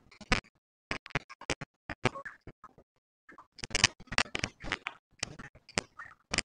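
Footsteps crunching and scuffing on dry, rough dirt ground: irregular short scrapes and crunches with brief silent gaps between them, busier in the second half.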